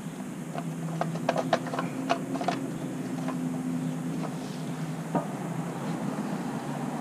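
Scattered light clicks and scrapes of wiring being pushed through a hollow light-bar mounting rail, most of them in a cluster during the first half, over a steady low hum.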